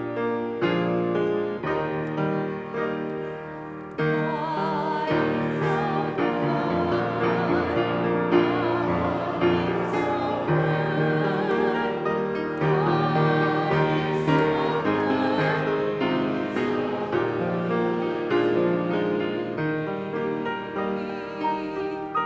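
Church music: piano playing with singing voices, the voices holding notes with vibrato; the music swells about four seconds in.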